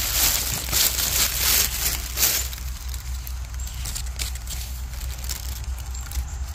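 Dry pine needles and leaf litter rustling and crackling under hands picking mushrooms from the forest floor. Louder for the first two seconds, then softer, scattered crackles.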